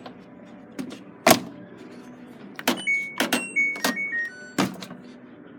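Buttons being pressed on a display washing machine's electronic control panel. There are sharp clicks, the loudest sounds, and several short electronic beeps at differing pitches, mostly in the middle.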